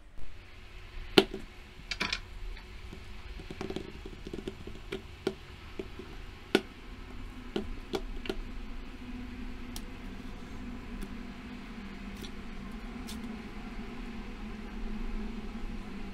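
Bananas being handled on a stone countertop: a series of sharp knocks and taps as they are set down, then softer handling as one is peeled. A low steady hum sets in about halfway through.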